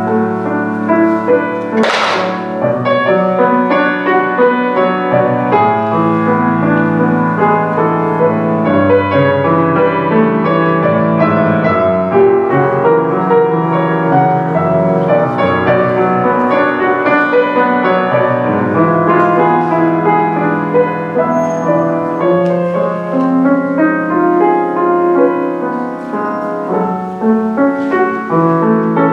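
Solo grand piano playing a continuous piece, many notes over sustained bass notes. A brief hissing noise cuts across it about two seconds in.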